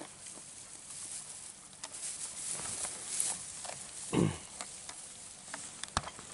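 Cameroon sheep feeding in dry hay: a steady crackling rustle of hay being nosed and pulled, with small clicks of chewing. About four seconds in comes a short, loud sound falling in pitch, and a sharp click near the end.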